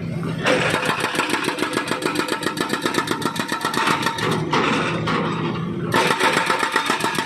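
Hydraulic breaker on a Volvo wheeled excavator hammering through thick asphalt in rapid blows, about ten a second. The blows come in two runs, from about half a second in until about four and a half seconds, and again from about six seconds in. Between the runs the excavator's diesel engine runs steadily.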